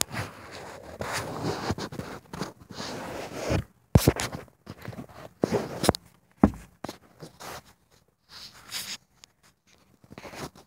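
Rubbing and rustling of a hand and clothing right against a phone's microphone for the first few seconds, then a few sharp clicks and knocks, with quieter scattered handling noises after them.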